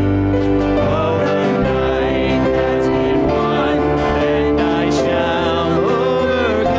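A hymn sung with keyboard accompaniment: sustained keyboard chords under singing voices.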